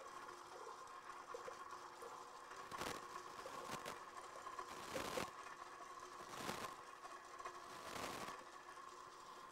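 KitchenAid stand mixer motor running slowly with the ice cream bowl's dasher turning, a faint steady hum, while liquid ice cream base pours into the frozen bowl with several soft swells of pouring.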